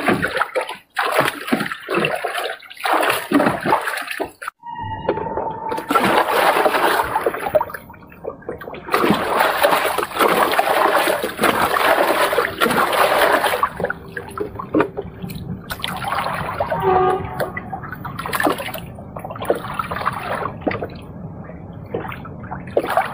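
Water splashing and sloshing in irregular bursts, changing abruptly a few times.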